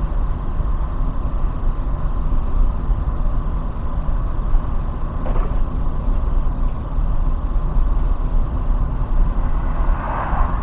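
Steady road and engine rumble inside a car cruising on a motorway, recorded through a dashcam's microphone, with a faint click about halfway through.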